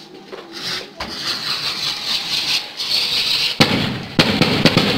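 Firecrackers going off: a sharp bang about a second in, then a hiss, then a rapid run of loud pops starting about three and a half seconds in.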